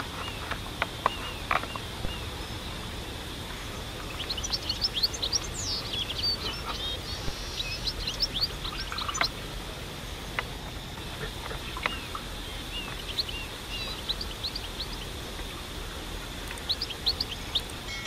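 Small birds chirping in quick runs of short high notes over a steady high-pitched hum. In the first two seconds there are a few sharp cracks as sugarcane is crushed under a wooden lever press.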